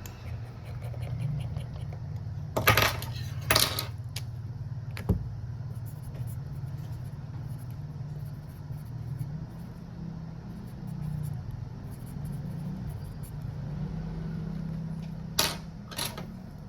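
A few sharp clicks and clatters of small hard objects, such as tools set down on a workbench, over a steady low hum. A pair of loud clacks comes about three seconds in and another pair near the end.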